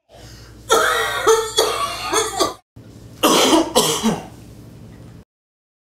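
A man coughing into his cupped hands: a run of several voiced coughs, then two more coughs about three seconds in. The sound cuts off suddenly near the end.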